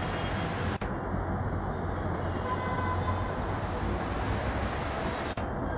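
EMD WDP4-class diesel locomotive working up a gradient as it approaches, its two-stroke engine a steady low drone over the rumble of the train. The sound drops out for an instant twice.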